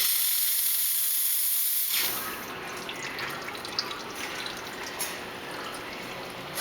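Steam wand of a two-group Brasilia Portofino espresso machine opened, hissing. The hiss is loud and high for about two seconds, then drops to a lower, steadier rushing.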